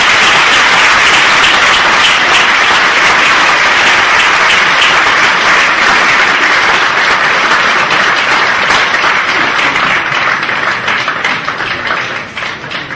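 Audience applauding, dense and steady, then thinning and dying away over the last few seconds.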